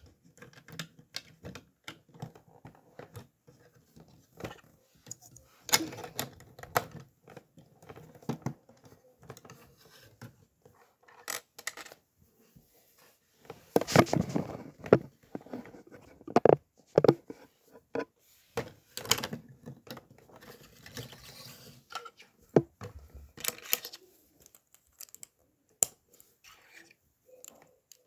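Lego pieces clicking, tapping and clattering as they are picked out and pressed together, with a denser stretch of rustling and rummaging about halfway through.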